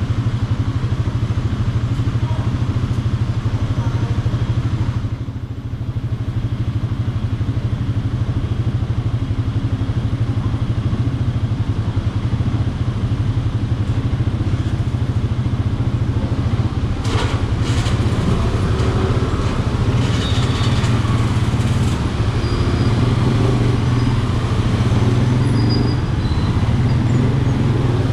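Motorcycle engine running steadily at idle while stopped in slow traffic, then pulling forward near the end. There is a brief dip in loudness about five seconds in and a few sharp clicks about two-thirds of the way through.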